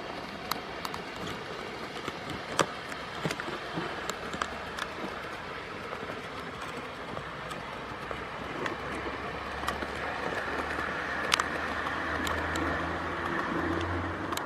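O gauge model diesel locomotive running on garden track with two coaches, its wheels clicking over the rail joints. From about halfway a low steady motor hum comes in and grows louder toward the end.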